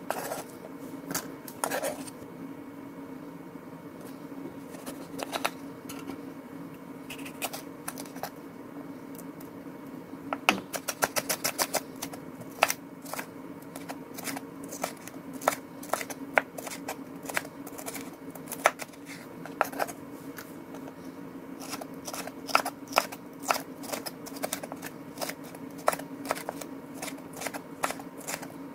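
Kitchen knife chopping vegetables on a cutting board: irregular runs of quick, sharp chops, with a dense flurry about ten seconds in and many strokes in the last third, over a steady low hum.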